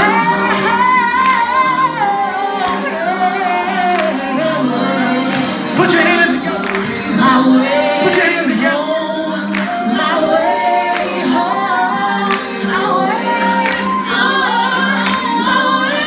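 Live music amplified through a PA: a woman sings a slow, melodic hook into a microphone over a backing track with a slow beat.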